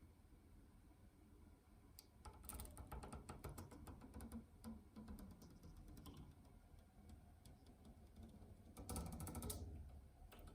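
Faint clicking and rattling in two short clusters, one about two seconds in and a louder one near the end, over a quiet background.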